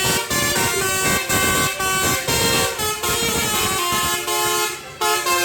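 Bus basuri (telolet) musical horn playing a quick melody, its notes stepping from pitch to pitch, with a short break near the end before it sounds again.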